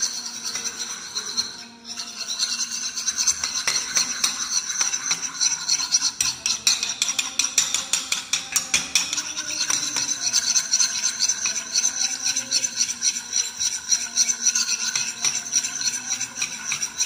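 A metal spoon rapidly stirring a white glue-and-water mixture in a plastic bowl: fast, continuous scraping and clicking of the spoon against the bowl, with a short break about two seconds in.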